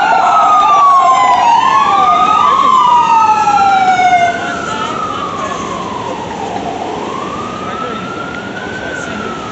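Emergency-vehicle sirens of FDNY ambulances pulling away, several slow wails rising and falling over one another. About four seconds in the loudest siren drops away and one slow wail carries on, fainter.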